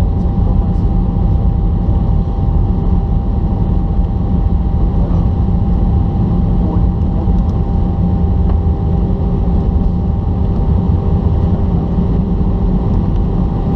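Cabin noise of an Airbus A320-214 rolling along the runway after landing, heard from a window seat over the wing: a steady low rumble from its CFM56 engines and the wheels on the pavement. A thin steady whine runs through it, and a second, lower whine joins about halfway through.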